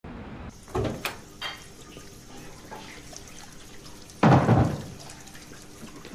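A front door handled with a few knocks and clicks about a second in, then shutting with a heavy thud about four seconds in, over a steady wash of running tap water from a kitchen.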